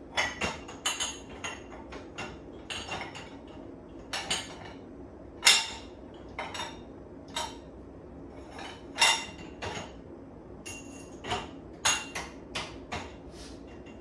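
Cups, mugs and plates clinking against one another and the wire rack as a dishwasher's upper rack is loaded, a run of irregular knocks, some with a brief ring. The loudest knocks come about five and a half and nine seconds in.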